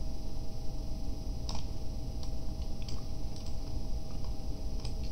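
Scattered faint clicks of a computer mouse, the clearest about one and a half seconds in, over a steady low hum.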